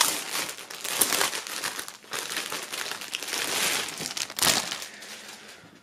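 Clear plastic sleeve around a folded T-shirt crinkling and crackling as it is handled, dying down near the end.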